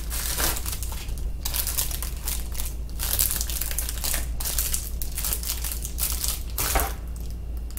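Plastic packaging crinkling and rustling in the hands: a bubble-wrap pouch, then a thin plastic bag, handled and opened, in irregular bursts of crackle.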